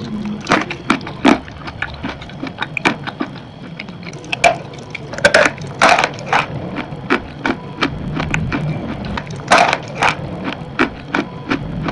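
Close-up crunching as a crumbly white chalk-like block is bitten and chewed: irregular sharp crunches and crackles, with the loudest clusters about midway and near the end, over a faint low hum.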